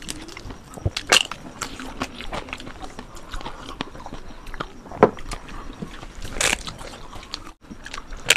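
Eating sounds: crisp fried papad being broken and bitten, a few sharp crunches between quieter chewing, with a sip from a glass.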